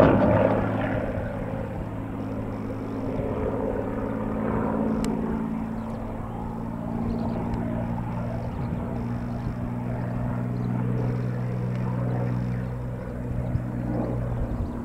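Hawker Hurricane Mk XIIa fighter in an aerobatic display, its Merlin V12 piston engine giving a steady pitched note overhead that shifts a little about halfway through.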